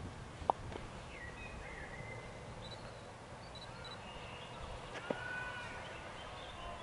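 Outdoor ambience with scattered birdsong, short chirps and whistles, over a low rumble. Two sharp clicks stand out, one about half a second in and one about five seconds in.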